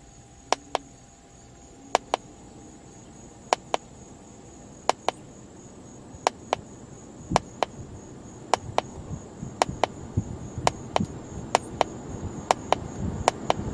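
Button clicks from a handheld scan tool, about a dozen presses a second or so apart, each a quick double click. Under them the car's HVAC blower motor, commanded step by step from speed level 0 to 10, blows air that grows steadily louder.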